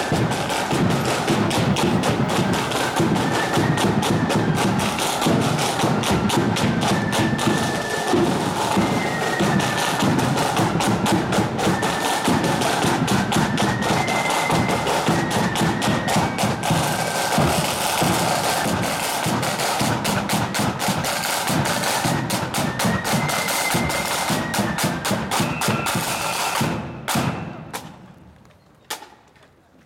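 Marching band playing: fast, dense snare drumming under a high-pitched melody line. The music stops about three seconds before the end, followed by a couple of single drum strikes.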